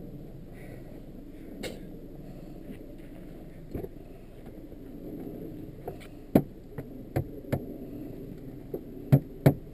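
Sharp knocks and clunks from the car door and snow shovel being handled at a Suzuki Grand Vitara as its driver's door is opened: a few knocks in the second half, with the loudest three close together near the end, over a steady low rumble.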